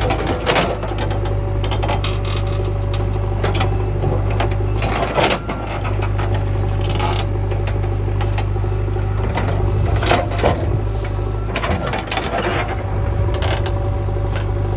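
JCB 3DX backhoe loader's diesel engine running steadily under work, with repeated clanks and rattles throughout.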